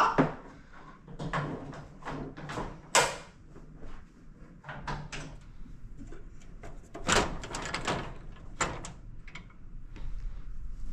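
Metal parts of a collapsible aluminium dog crate knocking, clanking and scraping as its side rails are unlatched and laid on top of the crate, with the loudest clanks about seven and about eight and a half seconds in.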